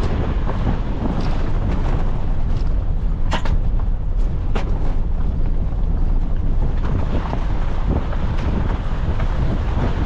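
Wind buffeting the microphone in a steady low rumble, with two sharp clicks about three and a half and four and a half seconds in.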